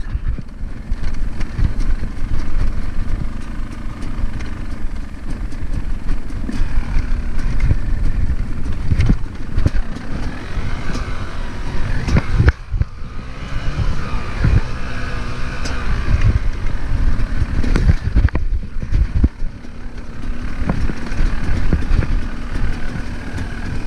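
Dirt bike engine running under changing throttle while riding over rough grassy ground, with knocks and thumps from the bumps. The engine note drops away briefly twice, about halfway through and again later.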